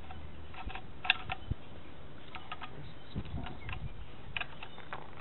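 Irregular light clicks and taps, the loudest about a second in, with a few low thuds, from a long-handled socket wrench being fitted and worked on the flywheel nut of a VW 1600 air-cooled engine held by a flywheel-locking tool.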